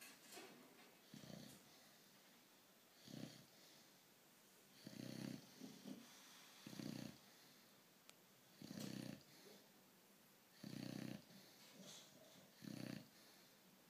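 Faint snoring: short, low snores about every two seconds, seven of them.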